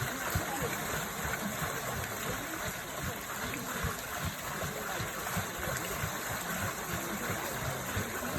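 Running water flowing steadily, a continuous even rush with no breaks.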